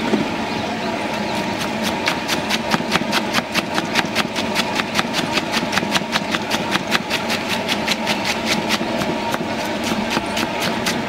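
Knife rapidly shredding a cabbage against a wooden chopping board, a quick even run of about four chops a second starting a second or so in. A steady engine-like hum runs underneath.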